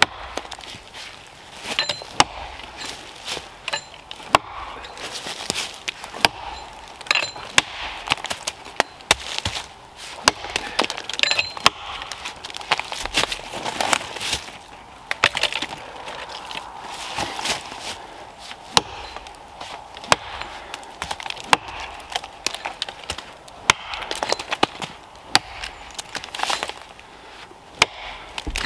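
Rinaldi Calabria axe, its edge freshly filed to a flatter profile, chopping into a fallen tree trunk. It lands a long series of sharp blows of the axe head biting into the wood, about one to two a second.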